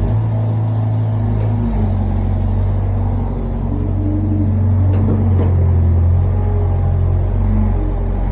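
Excavator's diesel engine running steadily under a low, even note, with its pitch and level shifting slightly a few times as the load changes.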